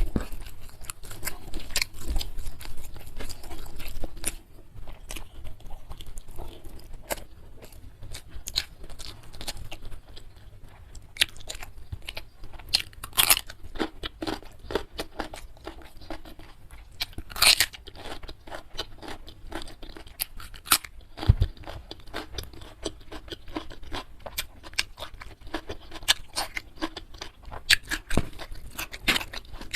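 Close-miked chewing and crunching of food in the mouth. The crisp crunches come thickly for the first few seconds, then more sparsely, with a few louder bites further on.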